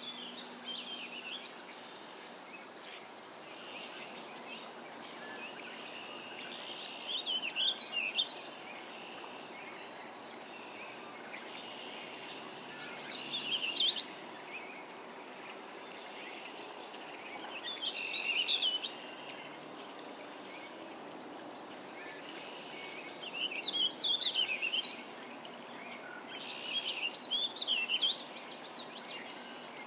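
Warbling vireo singing: five rambling, warbled song phrases of about two seconds each, roughly every five seconds.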